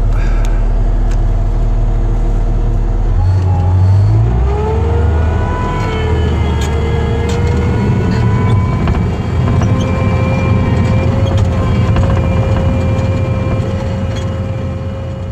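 Bobcat T650 compact track loader's diesel engine running; about three seconds in it revs up and a whine rises in pitch over a couple of seconds, then holds steady, as the Blue Diamond brush cutter spins up to mowing speed. The sound fades a little near the end.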